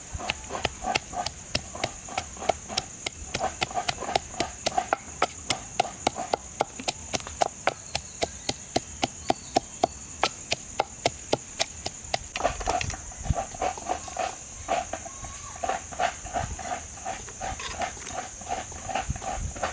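A knife chopping on a cutting board in a fast, even rhythm of about three to four strokes a second, with a brief break near the middle. A steady high insect drone runs behind it.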